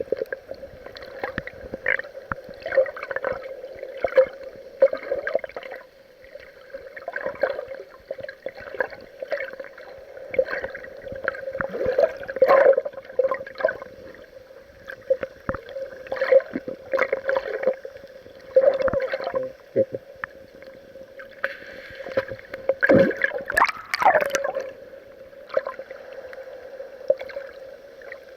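Water sloshing and gurgling against an action camera's waterproof housing, heard muffled as irregular splashes over a steady hum, with one rising swish about three-quarters of the way through.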